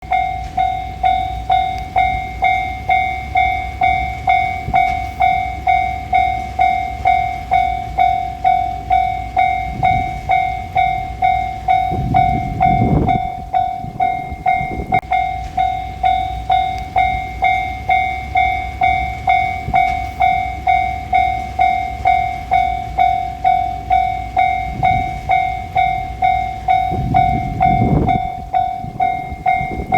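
Japanese railway level-crossing warning bell ringing its steady "kan-kan", an even pulsing tone of between two and three strikes a second, over a low rumble that swells briefly twice.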